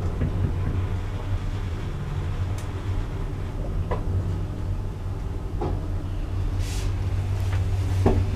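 Modernised Thyssen passenger lift running, a steady motor hum with a few short clicks from the car and doors.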